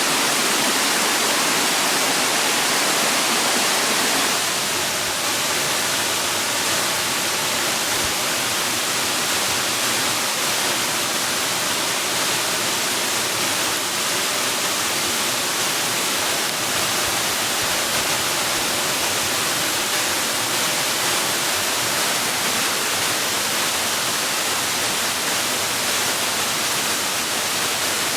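Steady rush of falling water: an even, continuous hiss, strongest in the upper range with little bass. It eases very slightly about four seconds in.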